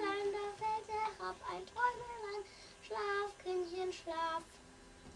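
Children singing a song, the singing stopping about four and a half seconds in.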